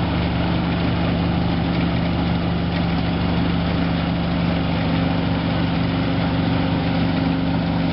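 Rice harvesting machine's engine running steadily at a constant pitch.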